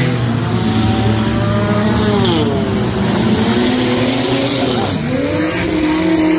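Several stock junk race cars running hard together, their engines rising and falling in pitch as they lift off and accelerate again through the turns, with a dip about two and a half seconds in and another about five seconds in.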